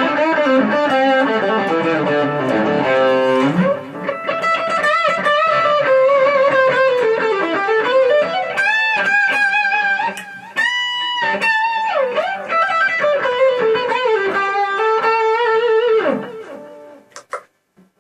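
Greco electric guitar played as a solo lead: sustained single notes with bends and vibrato, and a quick descending run about two seconds in. The playing stops about sixteen seconds in and the last note fades out.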